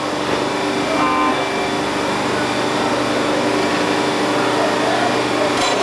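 Track-renewal machine laying concrete railroad ties, running steadily with an engine drone and a steady hum. A short beep sounds about a second in, and a metallic clank comes near the end.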